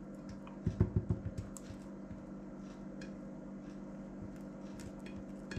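A spoon scraping and tapping against a plate as garlic mayonnaise is spread over a thin liver pancake, with a cluster of soft knocks about a second in, over a steady low hum.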